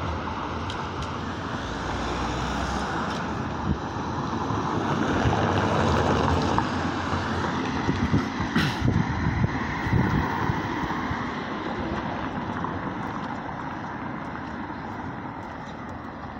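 Road traffic: cars passing on the roadway close by, loudest about halfway through, with wind rumbling on the phone's microphone.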